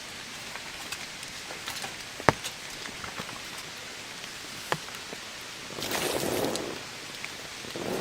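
Steady rain falling, with single heavy drops tapping sharply, the loudest about two seconds in. Around six seconds in a louder rustling swell rises for about a second, and another starts near the end.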